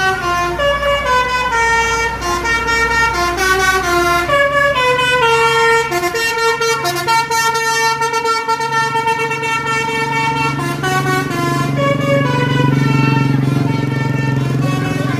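Tour bus's telolet horn, a multi-tone air horn, playing a fast melody of changing notes over the steady running of the bus engine.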